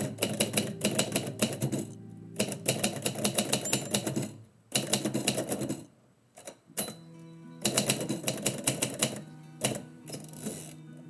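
Typewriter keys striking in quick runs of keystrokes, broken by short pauses, over soft background music.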